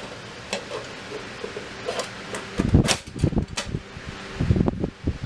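Clunks and clicks of the reflector kit's parts being handled and fitted into its metal case, with two clusters of heavier knocks, about halfway through and near the end. A steady hum runs underneath.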